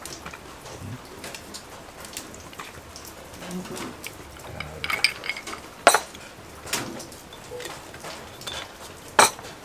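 Whisky poured from a glass bottle into a glass of ice cubes, with several sharp glass-and-ice clinks, one of the loudest near the end.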